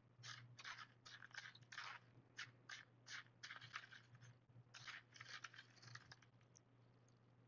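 Fingers scraping and picking through a small dish of crushed glass and shell fragments, a quick, irregular run of faint gritty scratches that stops about six seconds in.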